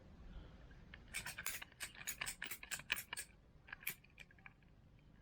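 Plastic water pipe being cut: a faint, irregular run of short, sharp clicks and scrapes, several a second, from about a second in until about four seconds in.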